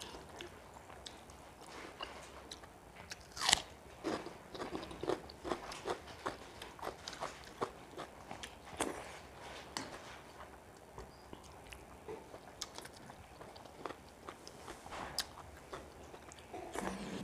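Mouth sounds of a person eating pakhala bhat (rice soaked in water) by hand: chewing with wet clicks and lip smacks, a few louder than the rest, the loudest about three and a half seconds in.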